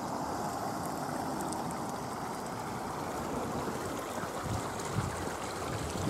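Steady rushing outdoor noise, with a few low bumps near the end.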